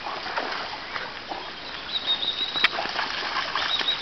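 Newfoundland dog swimming, its paddling legs splashing and churning the water in an uneven run of splashes.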